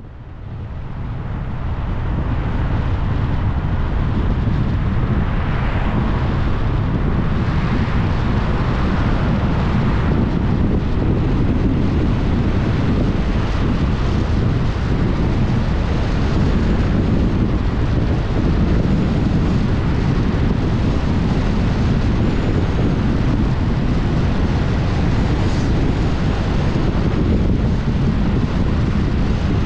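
Wind rumbling on the microphone of a moving car, with road noise beneath. It swells over the first two seconds and then holds steady.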